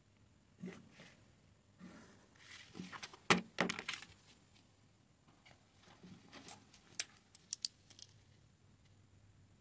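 Handling of paper and a clear plastic ruler on a cloth-covered table: rustling and light knocks, with a cluster of louder clattering about three and a half seconds in as the ruler is moved aside, and a few sharp clicks about seven seconds in.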